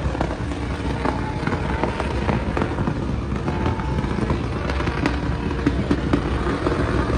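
Truck doing a burnout: the engine is held at high revs with spinning-tyre noise, shot through with a rapid run of sharp crackling pops.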